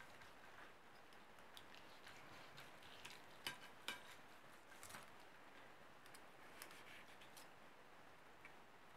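Faint sound of a knife and fork cutting a roasted pork knuckle on a plate: a few sharp clicks of the cutlery, the two loudest about half a second apart near the middle.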